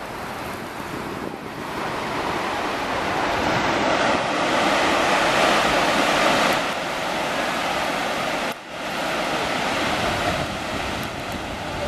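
Pacific Ocean surf breaking over a rocky shore: a steady rush of waves that swells louder in the middle and dips briefly about two-thirds of the way in.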